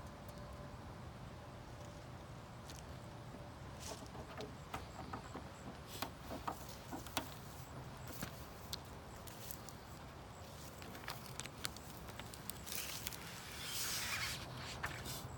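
Faint handling noises from working a vinyl stripe onto a car's body: scattered light clicks and taps, then a brief rasping noise near the end.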